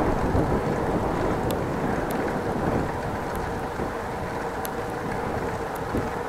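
Wind rushing over an action camera's microphone while riding a bicycle, with a steady rolling noise underneath and a few faint high ticks.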